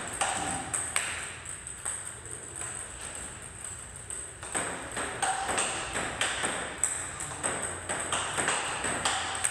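Table tennis balls clicking sharply and repeatedly off rubber paddles and the tabletop in an irregular quick rhythm during a forehand topspin drill, with the balls fed in quick succession from a basket.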